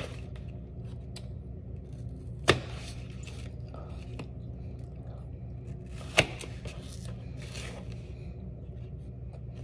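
Knife cutting apple slices into small sticks on a plate: two sharp knocks of the blade meeting the plate, about two and a half and six seconds in, with fainter cutting and handling sounds between.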